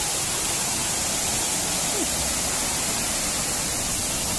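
Waterfall pouring into a rock plunge pool: a steady rushing of falling water.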